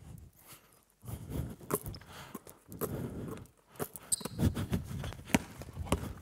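Sneaker footsteps and scuffs on a wooden sports-hall floor as two players move in a one-on-one drill, with a short shoe squeak about four seconds in and the thuds of a basketball being dribbled near the end.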